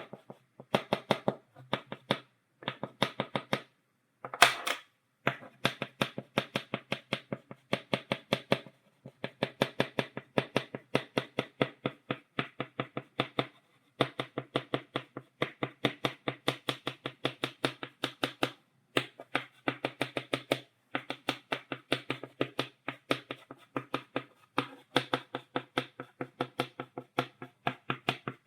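Stick of chalk tapped rapidly against a blackboard in stippling dots, several taps a second in runs broken by short pauses, with one louder, longer stroke about four seconds in.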